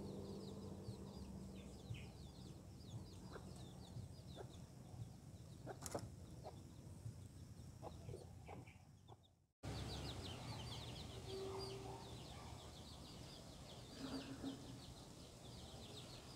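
A hen and her chicks heard faintly: low clucks from the hen among many short, high peeps from the chicks, with a few light ticks.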